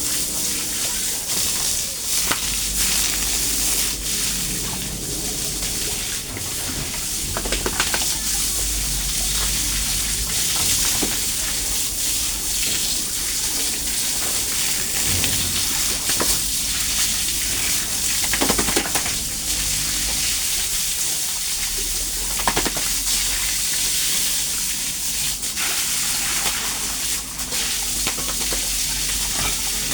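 Steady rushing noise like running water, with a few short sounds breaking through now and then.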